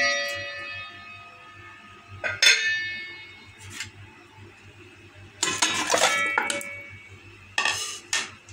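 Aluminium cooking pot being handled and set down. Sharp metal knocks ring on briefly at the start and again about two and a half seconds in, followed by two spells of clattering, one in the middle and one near the end.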